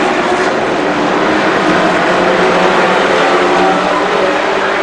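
Several compact-pickup race trucks' engines running together at racing speed: a loud, steady drone of overlapping engine notes.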